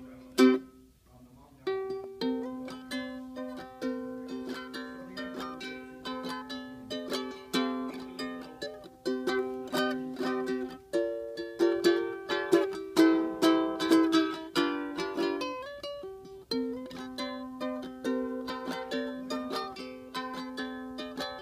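Background music played on plucked strings, in a light, steady strummed rhythm, with a short pause about a second in.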